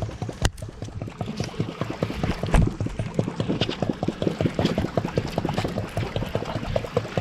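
Water splashing and gurgling on the boat, a fast, irregular patter of small splashes.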